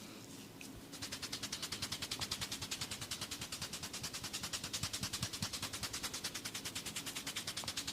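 Fast, even tapping on a head during a massage, about eight crisp taps a second, starting about a second in.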